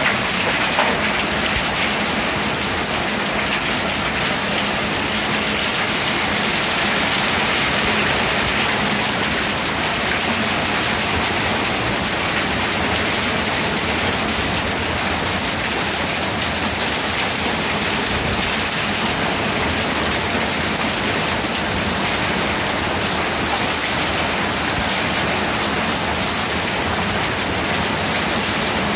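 Heavy rain pouring down, an even, steady hiss with no break.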